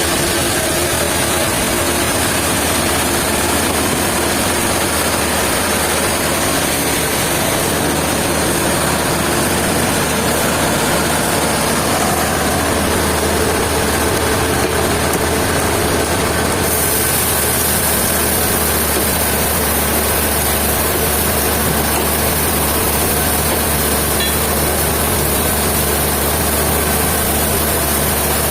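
Heavy engine-driven sawmill machinery running steadily: a constant low hum under an even hiss, the high hiss growing louder a little over halfway through.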